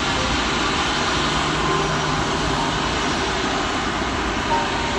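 Steady engine noise from jet airliners taxiing at low thrust.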